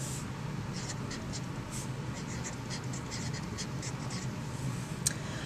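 Felt-tip marker scratching across poster paper in a run of short strokes as words are written, with one sharp tick near the end.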